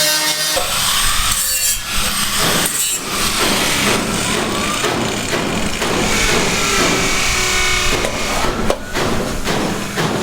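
Sawing on a building site: a rough, grating noise that starts about half a second in, shifts in texture with a few short breaks, and stops near the end.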